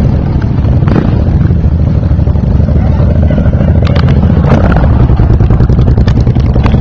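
Engines of a group of heavy cruiser motorcycles running, a loud, steady low sound with a fast even pulse.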